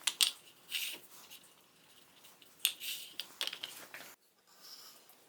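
Homemade gear clink sound effect: a laser-cut steel clinker wheel turned against its pawl, giving a few sharp metallic clinks, with felt pads riding on the wheel to damp its ringing. The clinks stop abruptly about four seconds in.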